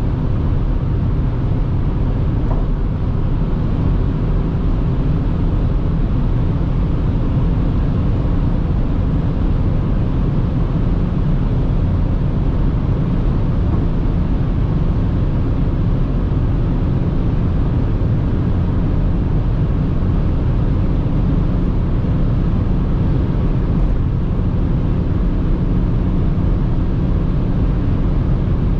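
Steady cabin noise of a BMW X5 E70 3.0d's straight-six diesel cruising at high Autobahn speed: engine, tyre and wind noise blended into one even, low rumble that holds level throughout.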